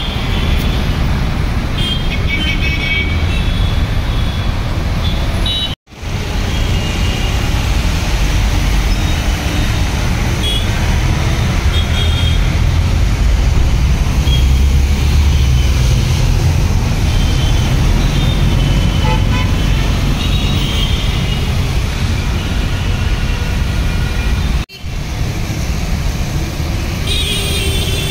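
Busy city road traffic: a steady rumble of engines and tyres, with car and scooter horns honking now and then. The sound cuts out for a moment twice.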